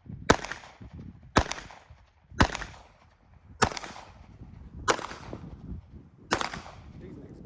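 Six pistol shots from a 9 mm Glock, fired one at a time about a second apart as slow aimed fire at bottle targets, each a sharp crack with a short echo.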